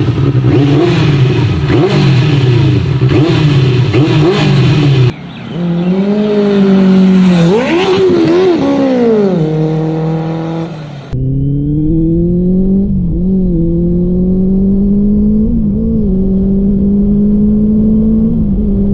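Benelli TNT 600i inline-four engine running, revved up and down a few times in the middle, then held at a steady, slowly rising pitch while riding. The sound changes abruptly about five and eleven seconds in.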